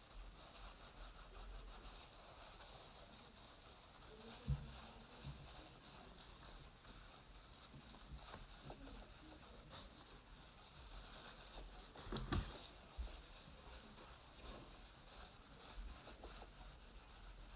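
Faint rubbing and rustling of hands working wool to compact the felt. There is a soft knock about four and a half seconds in and a few more about twelve seconds in.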